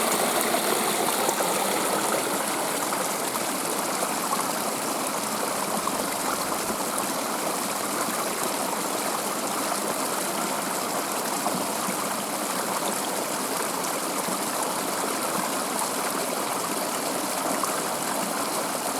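Stream water running, a steady rushing flow.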